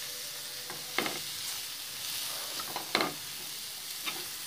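Metal spatula stirring and scraping ivy gourd pieces and grated coconut in a steel pan over a steady light sizzle of frying. A few scrapes stand out, the loudest about a second in and about three seconds in.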